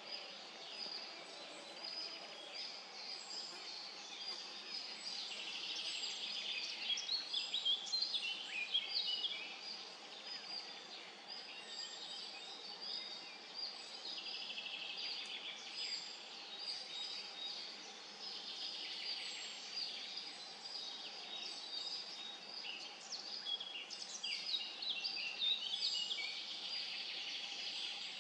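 Woodland songbirds singing: several birds with a mix of short chirps and quick trills, busiest about a quarter of the way in and again near the end.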